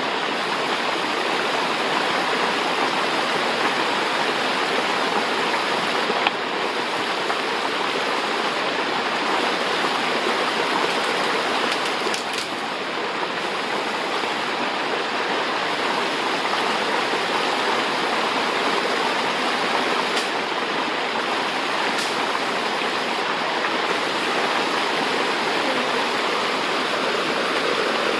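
Steady rushing of a mountain creek and waterfall, with a faint click about six seconds in.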